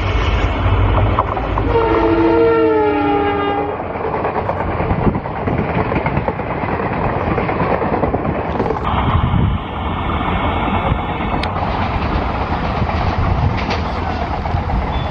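EMD WDG4 diesel locomotive, with its 16-cylinder two-stroke engine, sounds its horn for about two seconds as it approaches, its engine rumbling. The train of ICF coaches then rolls past close by, its wheels clattering over the rail joints, and draws away.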